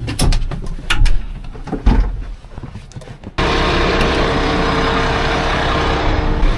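Scattered knocks and clicks inside a JCB wheel loader's cab over a low engine rumble. About three and a half seconds in, the sound switches abruptly to a Fendt tractor running steadily, heard from inside its cab, with a steady hum.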